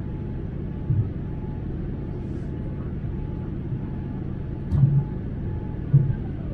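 Steady low cabin roar of a Boeing 787-9 climbing after takeoff: engine and airflow noise heard from a window seat. Three brief low bumps stand out above it, about a second in, near the middle and near the end.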